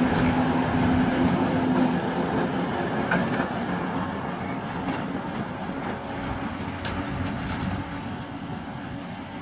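Twin-section 2TE116 diesel locomotive running past and moving away, its engine sound fading steadily.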